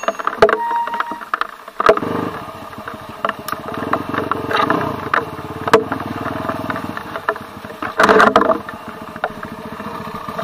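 Dirt bike engine running while riding a muddy forest trail, with knocks and rattles of the bike over rough ground. It picks up about two seconds in and surges loudly around eight seconds in.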